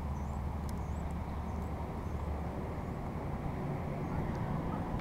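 Steady low outdoor rumble, with a few faint, short, high chirps in the first second or two.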